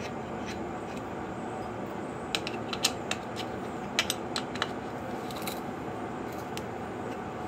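Light metallic clicks and taps from a tool working at the round inspection cap on the dirt bike engine's side cover. They come in two quick clusters about two and four seconds in, over a steady background hum.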